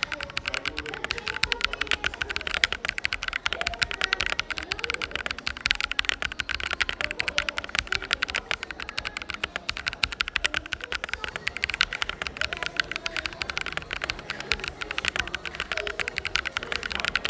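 Mechanical keyboard with fully lubed switches being typed on fast and without a break, a dense stream of key clacks. Faint cafe chatter underneath.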